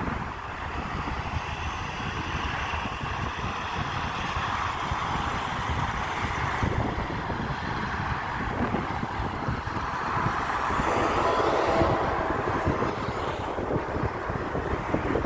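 Freeway traffic: a steady wash of car and truck tyre and engine noise from the lanes below, with wind buffeting the microphone. The traffic gets louder for a couple of seconds a little past the middle, as heavier vehicles go by.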